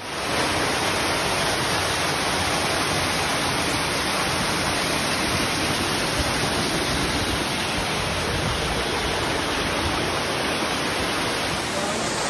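Small waterfall pouring over rocks: a steady, loud rushing of falling water, heard right at the cascade.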